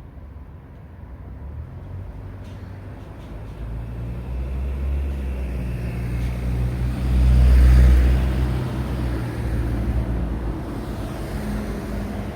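A heavy road vehicle's engine draws near and passes close by, its low hum building steadily and loudest a little past halfway, amid road traffic noise.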